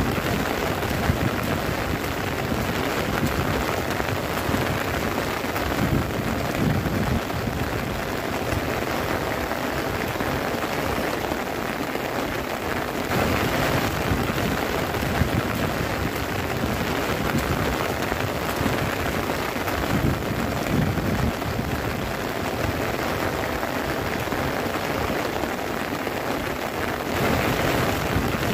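Heavy rain falling steadily on the tent's fabric, heard from inside the tent. It is a dense, even patter that swells briefly about halfway through and again near the end.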